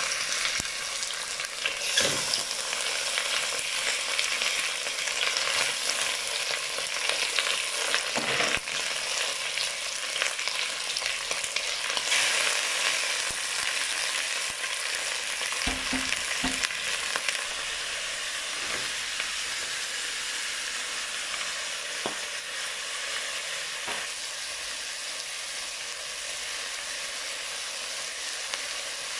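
Raw chicken breast pieces sizzling in hot oil with onion and garlic in a stainless steel pot. The sizzle is louder and more uneven in the first half, with a few soft knocks as more pieces go in, then settles into a steadier, slightly quieter hiss.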